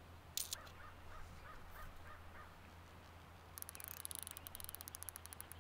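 Fly reel's ratchet drag clicking rapidly as line is pulled off the spool, starting a little past halfway. Before it come a single sharp click and a short run of faint repeated calls.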